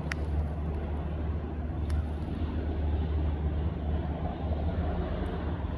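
Steady drone of a small general aviation airplane's engine and propeller, heard from inside the cockpit in flight, with a couple of faint clicks.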